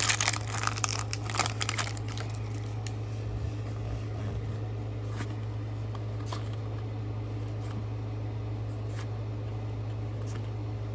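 Foil booster pack wrapper crinkling for the first couple of seconds, then a steady low hum with a few faint clicks.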